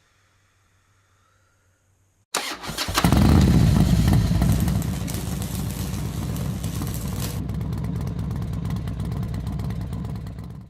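A faint low hum, then about two seconds in a motorcycle engine starts, catches almost at once and runs loudest for a couple of seconds before settling to a steady run. It cuts off suddenly at the end.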